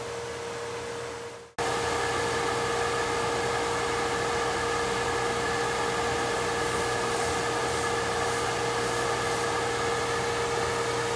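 Snap-On PBC58 automatic pressure wash cabinet running its wash cycle: a steady hum with the hiss of spray. It comes in suddenly and much louder about a second and a half in, then holds steady.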